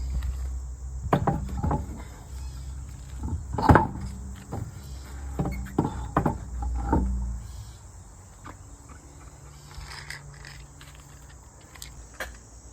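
Crickets chirping steadily, with a series of knocks and clunks in the first half, the loudest nearly four seconds in, over a low rumble that stops a little past halfway.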